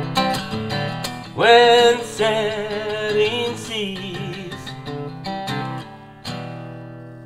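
Closing bars of a song on acoustic guitar and voice: picked chords, a held sung note with vibrato about a second and a half in, then a final strummed chord near the end left ringing out.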